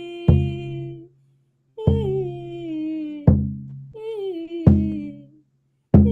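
Music: a voice singing wordless, slowly descending phrases over an instrument struck or strummed about every second and a half. The sound cuts out to silence twice, briefly.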